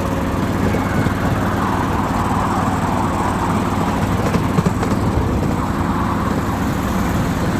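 Miniature passenger train running, with a steady low engine drone and rumble and fine rapid clatter.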